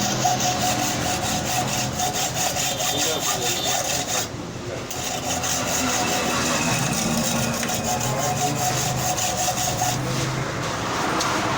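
Repeated rasping strokes of a hand tool, file or hacksaw, working metal during the repair of a motorcycle hub key, with a short break about four seconds in.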